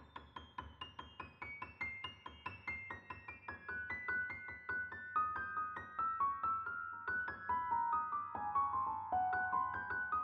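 Solo piano improvisation: a quick run of struck high notes that steps gradually downward in pitch and grows louder.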